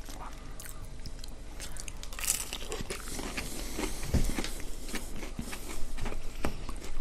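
People chewing and biting into pide kebab, its crisp bread crust crunching, with irregular wet clicks and crackles. A couple of louder knocks come past the middle.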